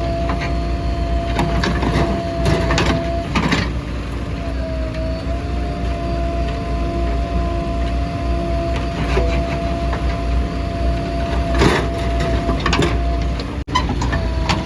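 Diesel backhoe loader working: a deep engine rumble with a steady whine over it, and a few knocks and clanks.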